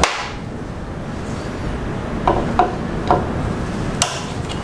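Light metallic clicks and clinks of a screwdriver and small parts on a motorcycle's bank of Mikuni carburettors. There are three short ringing taps about two seconds in and a sharp click near the end, over a steady low rumble of wind on the microphone.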